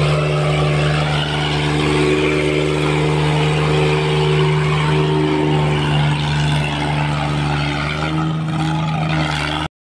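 Tractor diesel engine running steadily under load, a constant drone that cuts off suddenly near the end.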